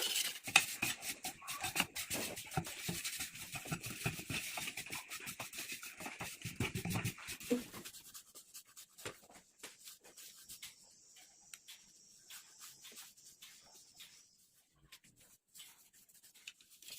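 Hand work on metal parts: irregular rubbing and scraping with many small clicks and taps, thinning out to sparse faint ticks after about eight seconds.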